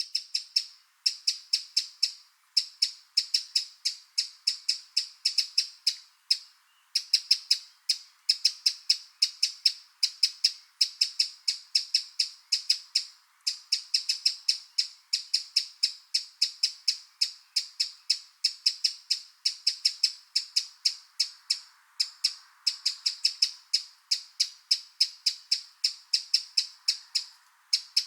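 Eurasian wren calling: a rapid series of sharp, high ticks, several a second, in runs of a few seconds with short pauses between them.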